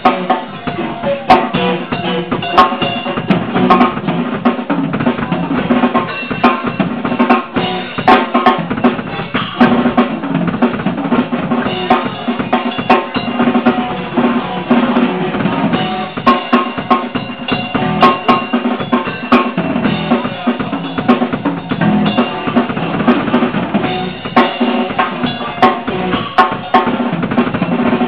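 Pearl rock drum kit played in a drum solo: fast bass-drum, snare and tom hits with rimshots and cymbals, loud and busy throughout.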